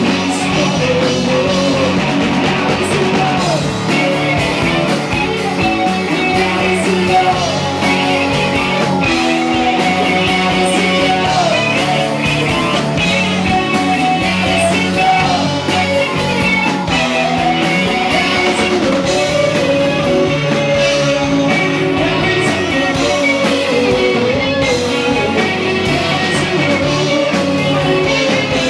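A rock band playing live and loud: electric guitar and drum kit under a singing voice, without a break.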